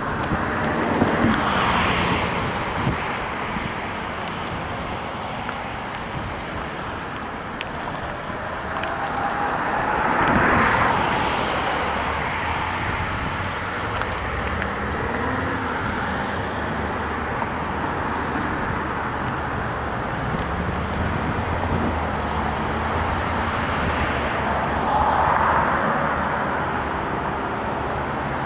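Road vehicles passing one after another: three swells of tyre and engine noise that rise and fade, about two seconds in, around ten seconds in and near the end, over a steady low rumble.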